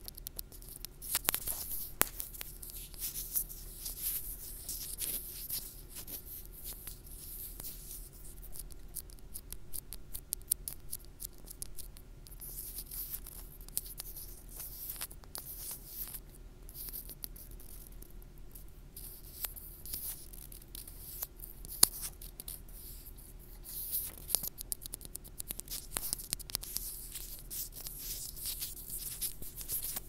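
Fingertips rubbing, scratching and tapping directly on a wired earphone's in-line microphone: close, dense crackling with frequent sharp clicks and a faint steady hum underneath. One click about three quarters of the way through is louder than the rest.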